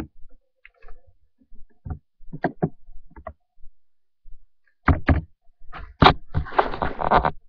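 A string of irregular knocks and thumps, several in quick pairs, then about a second of rough rustling or scraping near the end.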